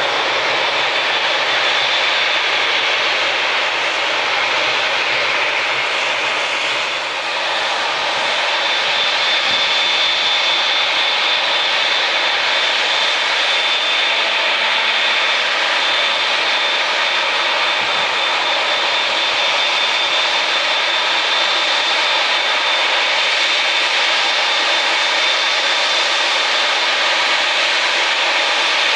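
Jet airliner's engines running at high power, a loud, steady noise with a thin high whine held on top, dipping briefly about seven seconds in.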